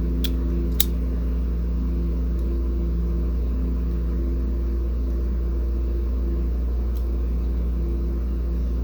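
A steady low mechanical hum with a few faint higher tones that fade in and out, and a few faint small clicks as the elastic-wound bobbin is handled in its bobbin case.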